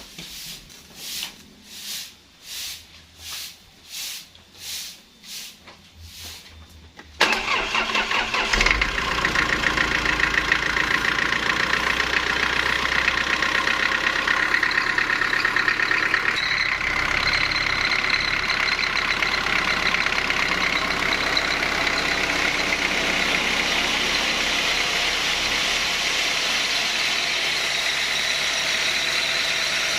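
Sawmill machinery engine being started: about nine evenly spaced whooshing strokes, then about seven seconds in the engine catches abruptly and runs steadily and loudly.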